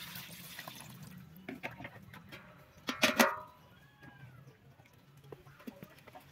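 Liquid pouring from a bowl onto pandan leaves in an electric pot, then a short, loud sound about three seconds in with a brief ringing tail.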